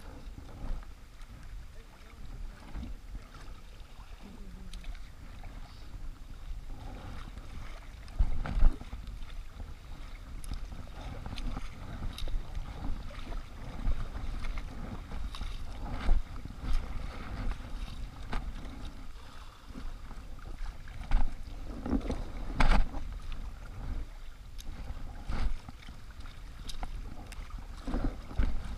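Kayak moving through choppy river water: steady rushing and lapping of water against the plastic hull, with irregular louder splashes of paddle strokes, the loudest about eight and a half seconds in. A low wind rumble on the microphone runs underneath.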